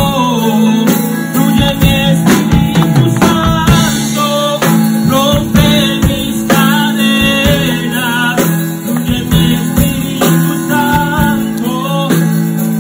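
Live worship band playing with singing: sustained keyboard and bass notes under a steady beat of percussion hits, with a voice singing a Spanish worship song over it.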